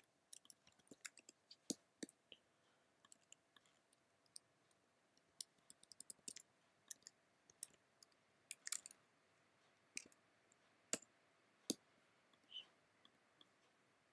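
Faint, irregular computer keyboard keystrokes: scattered single clicks, with a quick cluster around six seconds in and a few louder clicks near the end.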